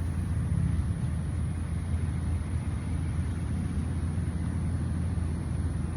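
Steady low rumble of background noise, with a faint high-pitched hiss above it.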